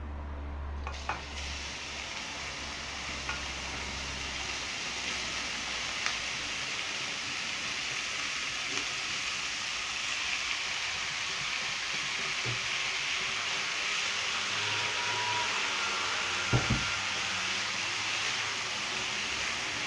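Minced meat sizzling as it fries in a hot pan: a steady hiss that sets in about a second in. A couple of short knocks come about three-quarters of the way through.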